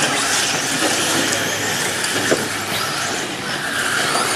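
Electric 1/10-scale RC buggies racing on a clay track, heard as a steady hiss of motors and tyres.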